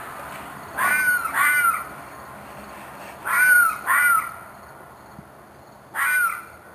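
Short, rasping animal screeches: a pair about a second in, another pair around three and a half seconds, and a single call near the end, each rising and falling in pitch. The calls are taken for those of an animal in distress.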